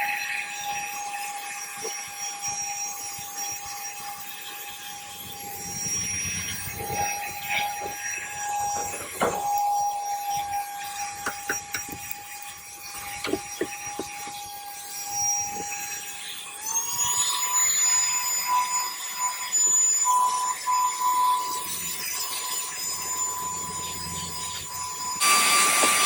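Cordless handheld mini car vacuum running with a steady high whine while it sucks up dirt, with scattered clicks and rattles of grit going through the nozzle. The whine steps up in pitch about two-thirds of the way in, and again near the end, where it also gets louder.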